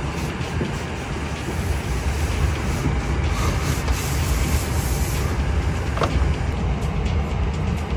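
Background music with a heavy, steady bass line.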